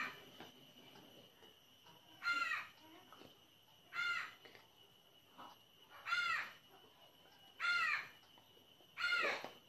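A bird calling repeatedly: five short calls, one every one and a half to two seconds.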